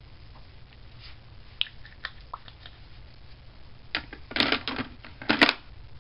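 Lip balm (Blistex) being rubbed onto the lips with a fingertip: faint small clicks and taps, then a few louder short rubbing and lip-pressing sounds about four and five seconds in.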